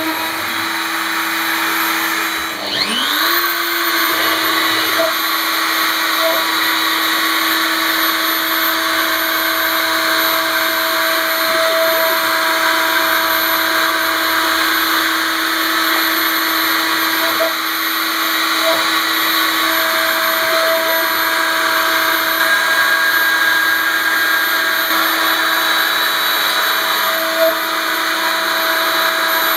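CNC router spindle running at a steady high speed while its end mill cuts aluminium. About two and a half seconds in the sound briefly drops, then rises back up in pitch to the same steady whine.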